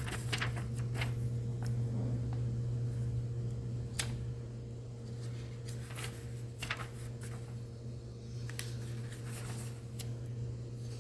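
Hymnal pages being leafed through by hand: scattered paper rustles and flicks, with a sharper tap about four seconds in, over a steady low hum.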